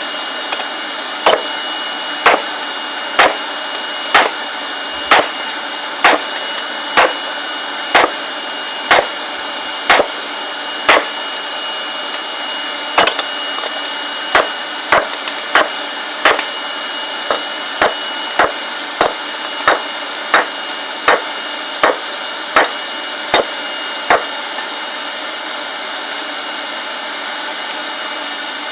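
Hammer blows on hot rebar on an anvil while forging a blade: about one strike a second, a short pause near the middle, then a quicker run of strikes that stops a few seconds before the end. A steady rushing noise runs underneath.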